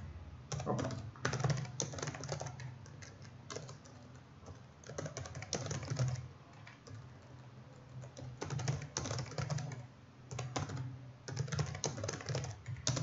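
Computer keyboard typing in quick bursts of keystrokes, with short pauses between the bursts.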